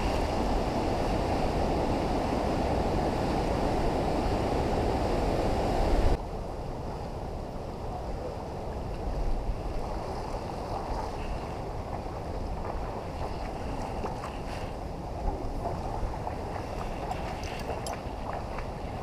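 Steady rushing of creek water mixed with wind buffeting the microphone; the noise drops abruptly about six seconds in and continues more quietly, with a few faint clicks and rustles near the end.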